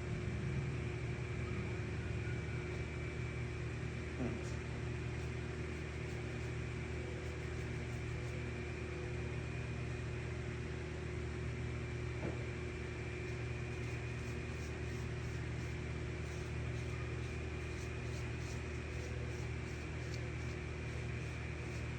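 Steady machine hum with a low drone and a faint high whine, holding level.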